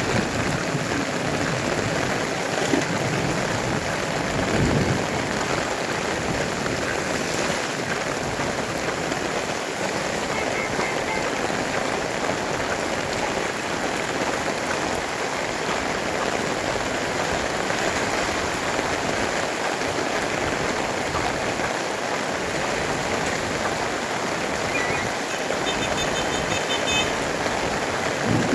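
Heavy rain pouring down steadily: a dense, even hiss of rainfall.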